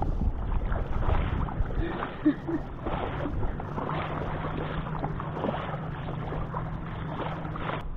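Shallow lake water splashing and sloshing as a large common carp is grabbed by hand and lifted out, with scattered knocks of handling, loudest in the first second. A faint steady low hum sets in about halfway through.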